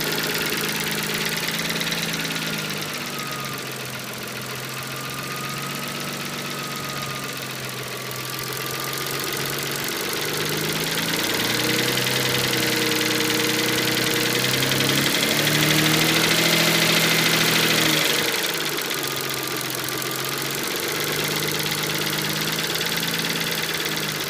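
Mitsubishi 3000GT's 3.0-litre V6 running with a knocking noise, held at speed, then raised in steps to a higher, louder speed about halfway through before dropping back. The knock is from a bent number-one connecting rod letting the piston skirt strike the crankshaft counterweights.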